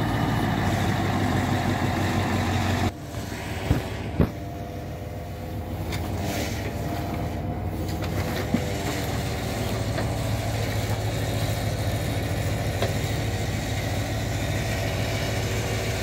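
Diesel engine of a MAZ timber truck running steadily to power its hydraulic loader crane, with a few sharp knocks about four seconds in.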